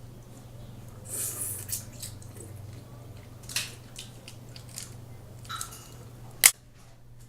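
Close-miked eating of boiled crab legs: scattered wet, crunchy bursts of cracking and chewing, with one sharp loud crack about six and a half seconds in.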